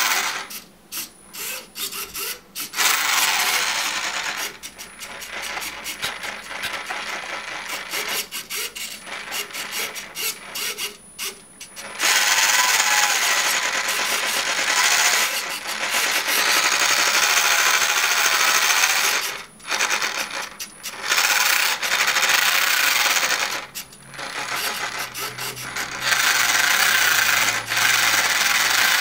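Drive motor and gears of a small electric RC car, its body removed, running in spurts: it whirs loudly, cuts out briefly several times and starts up again as it is driven back and forth.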